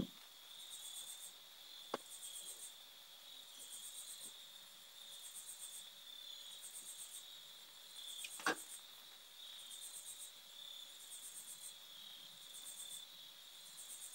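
Faint crickets chirping, a short high chirp repeating about every 0.8 s over a steady high trill, with two soft clicks.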